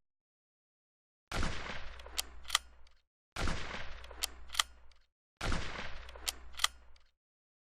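A rifle shot with a decaying boom, then two sharp clicks of the action being worked to chamber the next round. The shot-and-reload sequence repeats three times, about two seconds apart.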